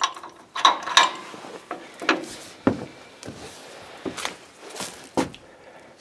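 Hydraulic top-link cylinder being fitted to a tractor's hitch bracket: scattered, irregular metal knocks and clanks as the parts are handled into place.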